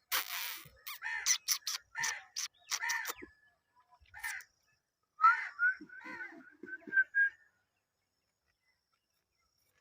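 Indian ringneck parrot calling: a quick series of harsh screeches, then a run of whistled, warbling chirps.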